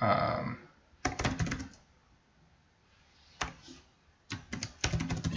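Typing on a computer keyboard: quick keystrokes in short bursts, with a pause of about two seconds in the middle.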